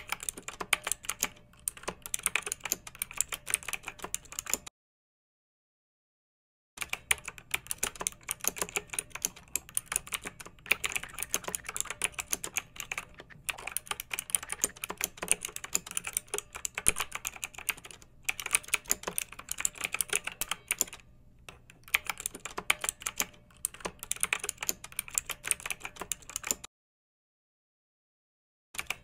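Fast, continuous tapping and clicking, like typing on a keyboard, over a faint steady hum. It cuts to dead silence for about two seconds twice: about five seconds in and again near the end.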